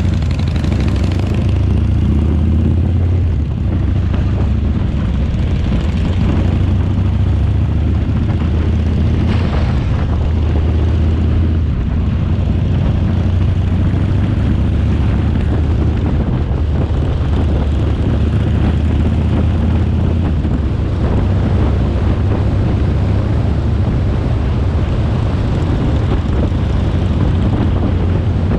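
Motorcycle engine running steadily under way, with wind and road rush over it.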